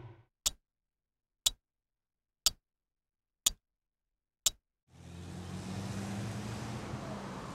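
A clock ticking in silence: five sharp ticks, one a second. About five seconds in, a steady background noise with a low hum comes in.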